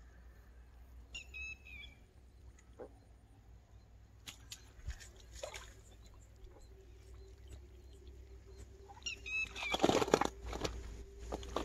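A hooked tilapia splashing and thrashing as it is hauled out of the pond through the weeds, loudest about ten seconds in. A small bird chirps briefly about a second in and again just before the splashing.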